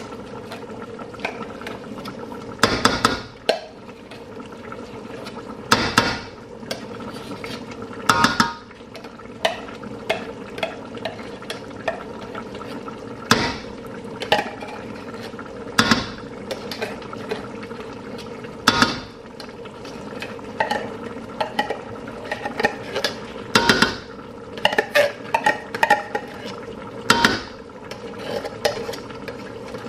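Metal spoon clinking and scraping against a stainless steel pot and a can as tomato paste is spooned into simmering stew: sharp clinks every few seconds, some in quick clusters. A steady hum runs underneath.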